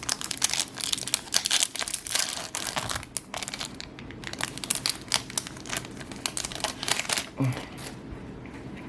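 A Yu-Gi-Oh! booster pack's foil wrapper crinkling and being torn open by hand: dense, irregular crackles for about seven seconds, then it goes quieter.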